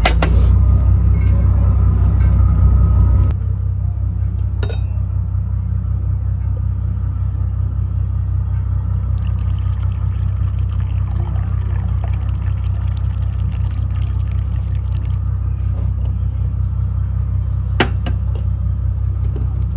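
Steady low rumble of a car on the move, heard from inside the cabin, a step louder for the first three seconds and then settling lower, with a few sharp clicks.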